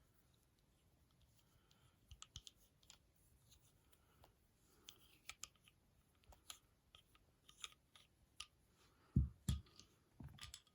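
Scattered small metallic clicks and taps from a Lee-Enfield rifle bolt being handled and taken apart, with a few heavier knocks near the end.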